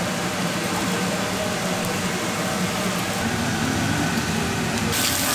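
Takoyaki batter sizzling on a hot griddle, a steady hiss over a low, even hum, with the hiss growing brighter near the end.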